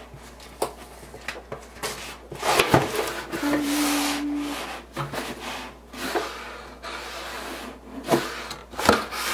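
A cardboard subscription box being opened by hand, without a box cutter: rubbing, scraping and light knocks of cardboard. The handling is loudest in a stretch of rubbing about three to five seconds in.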